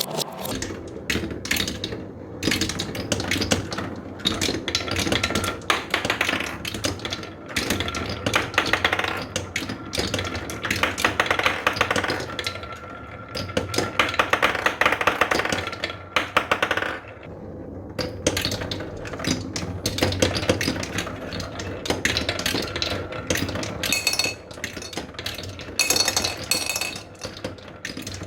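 Marbles rolling and clattering down a marble run: a dense stream of quick clicks and clacks with rattling rolls, pausing briefly a couple of times, with a few ringing notes near the end.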